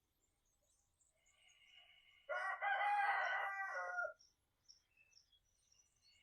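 A rooster crowing once, a loud drawn-out call lasting just under two seconds, with faint chirps from small birds around it.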